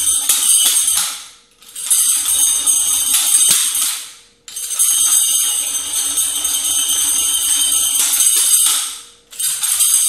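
Chain of a metal Chinese-style nunchaku jingling and rattling as it is spun, in runs of a few seconds broken by three short pauses.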